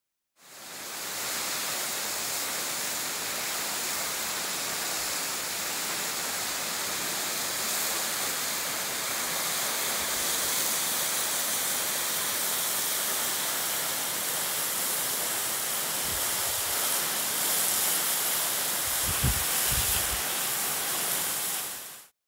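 A thin waterfall pouring off a rock overhang and splashing onto stones and into a shallow pool: a steady rushing hiss. A few short low thumps come near the end.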